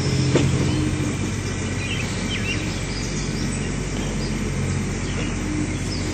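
Steady outdoor background noise with a low hum, and a small bird chirping a few times about two seconds in.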